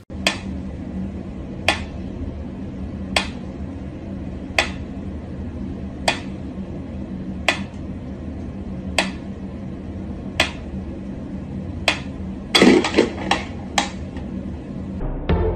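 Wind-up pyramid metronome ticking slowly, one sharp tick about every second and a half. About twelve and a half seconds in comes a short burst of louder clattering knocks.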